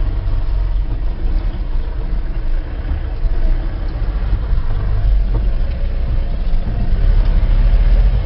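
A vehicle's engine running with a steady low rumble, heard from inside the cab, growing slightly louder near the end.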